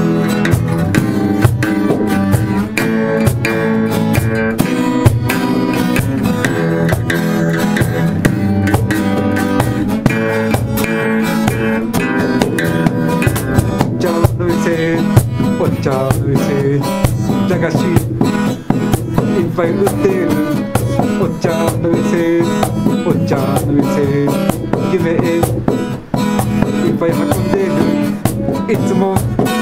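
Two acoustic guitars strumming and picking, with a cajon keeping a steady beat: an instrumental passage by a small acoustic band.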